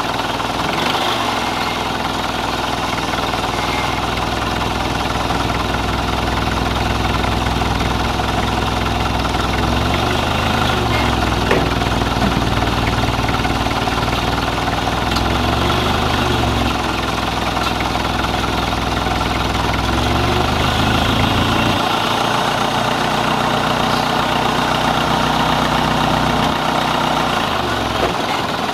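A vehicle engine idling, its pitch rising and falling in the middle, with the low rumble cutting out about two-thirds of the way through while a steady mechanical noise carries on.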